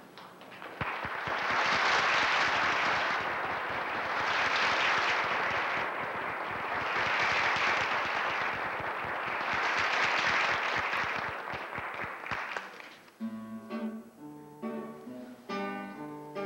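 Theatre audience applauding for about twelve seconds, swelling and easing in waves. About thirteen seconds in, the applause gives way to a small acoustic ensemble with guitar starting the next tune.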